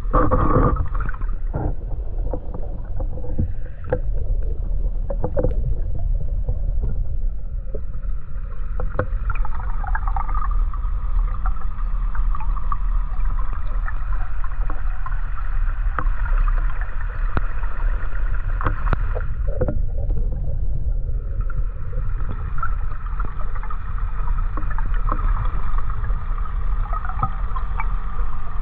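Underwater sound picked up by a camera submerged in a lake: a steady, muffled low rumble with scattered clicks and knocks, the loudest right at the start. A faint hum comes in about a third of the way through, drops out briefly past two-thirds, and then returns.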